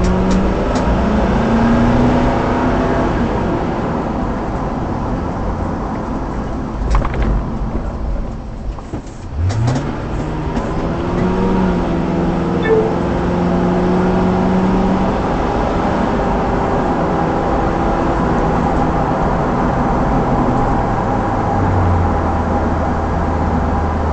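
Car engine and road noise heard from inside the cabin while driving. The engine eases off with a few clicks around eight seconds in, then rises in pitch as the car accelerates and settles into a steady run.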